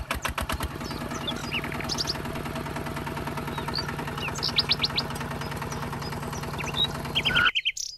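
Tractor engine running with a fast, steady chugging that cuts off abruptly near the end. Birds chirp over it several times.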